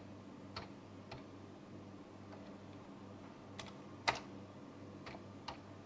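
Computer keyboard keys being pressed one at a time, about seven sparse keystrokes spread across a few seconds, over a faint steady hum.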